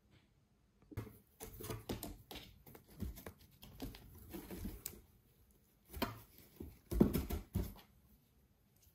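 A cat swatting at a feather wand inside a cardboard box: irregular scratching, rustling and tapping of paws and feathers against the cardboard, starting about a second in and loudest about seven seconds in.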